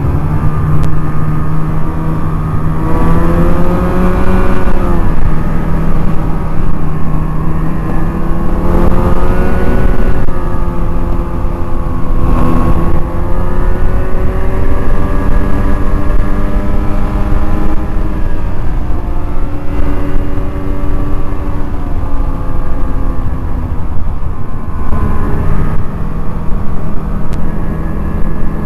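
Snowmobile engine running under way, its pitch rising and falling again and again as the throttle is worked, over a steady low drone.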